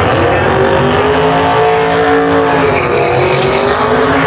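Drag race car engine held at high revs, its pitch wavering up and down, with tires squealing, as in a burnout before a pass.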